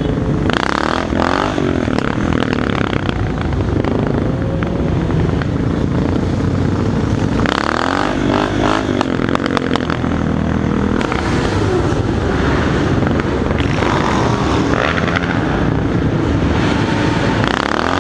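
Motorcycle engines of a group of bikes riding together, heard from the rider's helmet: engine pitch rises and falls several times as the bikes speed up and ease off.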